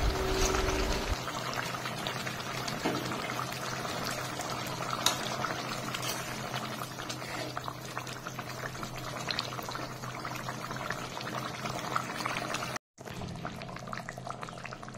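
Bengali fish curry boiling in a pan, a steady bubbling with fine pops and crackles, after fried katla fish pieces are slid into it from a spatula at the start. The sound drops out for a moment about two seconds before the end.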